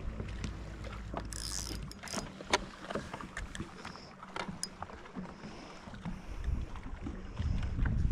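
Low rumble of wind and boat noise on the microphone, dropping away about two seconds in and coming back strongly near the end. Scattered sharp clicks and ticks in between come from handling the spinning rod and reel.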